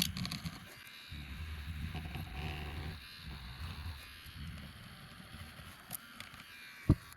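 Old screen adhesive being scraped off the rim of an iPhone's frame with a small tool: uneven scraping and rubbing with light clicks, and one sharp knock near the end.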